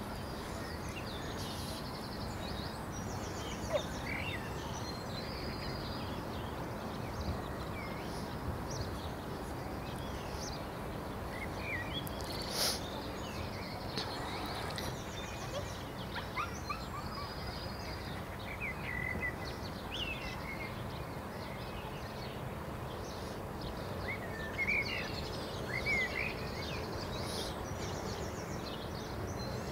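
Open-air background noise with small birds chirping and singing at intervals. One short sharp noise comes about halfway through.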